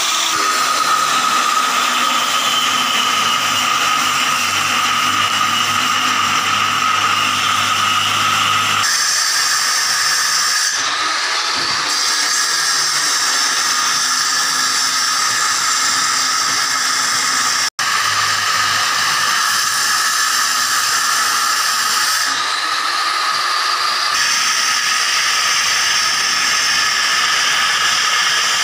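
Electric angle grinder with a diamond cutting disc running at full speed and cutting a groove into a brick wall: a loud, steady whine with grinding noise. The sound changes abruptly several times and cuts out for an instant about two-thirds through.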